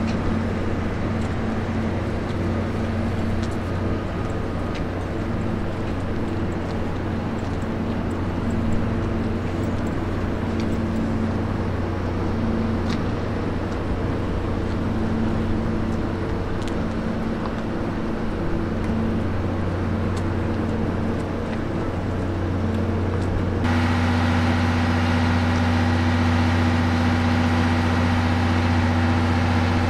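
Steady running noise of a locomotive-hauled train, a low droning hum with fainter pitched tones above it. About 24 s in it cuts abruptly to a slightly louder, steadier drone.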